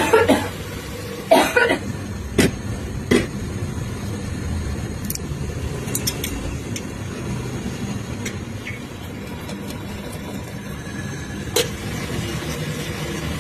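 A person coughing, about four coughs in the first three seconds, one of them a double cough. After that a steady low rumble continues, with a few faint clicks and one short sharp sound near the end.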